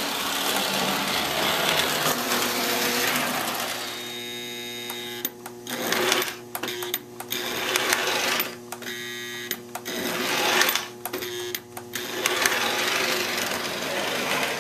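Bowser Brill O-gauge trolley running on three-rail track, its small DC permanent-magnet motor whirring along with the wheels on the rails. From about five seconds in the running sound cuts out and resumes several times, with a steady hum left in the gaps.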